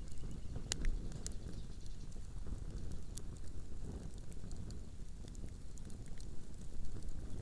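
Wood bonfire burning, with scattered sharp crackles and pops over a steady low rumble.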